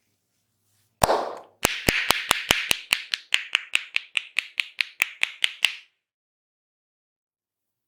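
Hands tapping rhythmically on a head during an Indian head massage: one hard strike about a second in, then a fast, even run of about twenty sharp taps at roughly five a second that stops just before six seconds.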